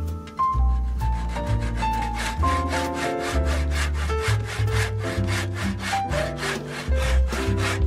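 Fast, rhythmic hand sawing through a juniper wood pen blank, about five strokes a second starting about a second in, over background jazz music.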